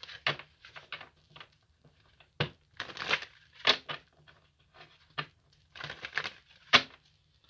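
A deck of oracle cards being shuffled by hand: repeated bursts of card-on-card rustling, with two sharper clacks about two seconds in and near the end.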